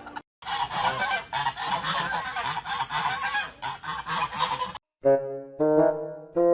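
Geese honking in a dense, overlapping clamor that cuts off abruptly about a second and a half before the end, followed by a few loud, steady, brassy pitched notes.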